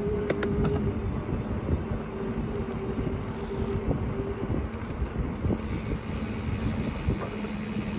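Wind buffeting the microphone and tyre noise while riding a bicycle on pavement, with a steady low hum underneath and a few sharp clicks in the first second.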